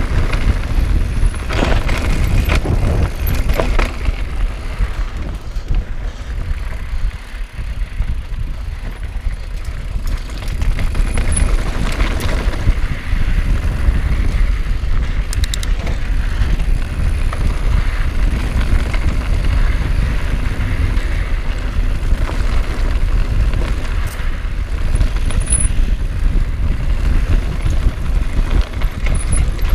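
Mountain bike riding a rocky dirt trail: a steady low rumble of tyres on gravel with wind on the microphone, broken by short rattles and knocks as the bike goes over stones.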